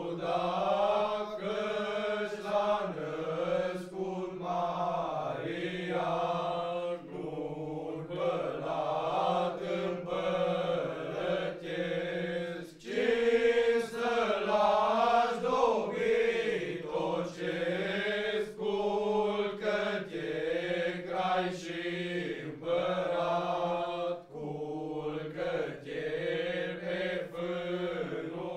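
A group of young men singing a traditional Romanian colindă (Christmas carol) together, unaccompanied, in long held phrases with brief breaks for breath.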